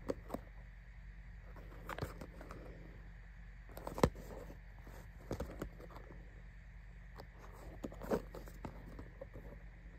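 Fingers handling and turning a small cardboard toy-car box, with scattered light taps and scrapes of the card; the loudest is a sharp knock about four seconds in. A low steady hum runs underneath.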